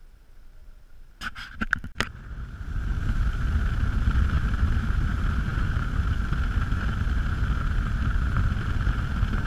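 Motorboat running at speed: a steady rumble of engine, wind and rushing water that comes in about two seconds in, after a quiet stretch broken by a few sharp clicks.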